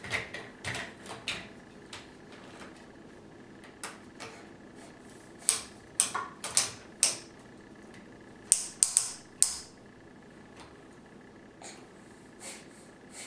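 A small child sniffing through the nose in quick, short sniffs, in clusters of two to four with pauses between.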